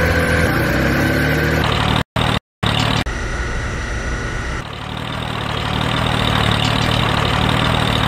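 A large engine running steadily, pitching up briefly in the first two seconds. It comes in short pieces cut together, with two brief drops to silence about two seconds in, and a higher whine over it for a second or so in the middle.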